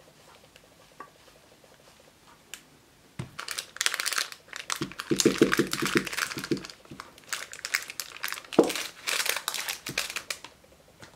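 Baking parchment crinkling and rustling as the lined metal baking tray is moved and shaken to spread the hot honeycomb mixture, starting about three seconds in, with a quick rhythmic rattle of the tray partway through.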